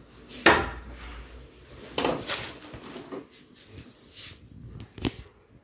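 Knocks and handling sounds while wiring a split AC indoor unit. The loudest knock comes about half a second in, and a sharp click follows near the end.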